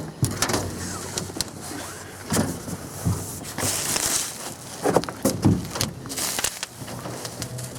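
Irregular knocks, clunks and scraping of heavy sawmill parts and crate wood being handled during unpacking, with a longer scrape about halfway through.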